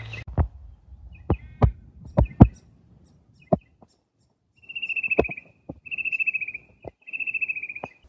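Fan-tailed cuckoo calling: three slightly descending trills, each under a second long, over the second half. Sharp clicks and knocks, the loudest sounds, are scattered through the first few seconds, with a few more among the calls.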